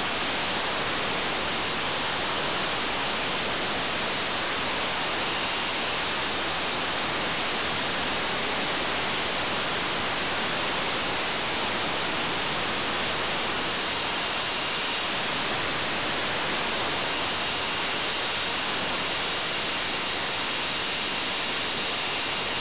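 Steady FM radio static hiss from an RTL-SDR receiver tuned to the LAPAN IO-86 satellite's 435.88 MHz voice-repeater downlink, with no voice coming through. Faint thin whistles sit in the hiss now and then.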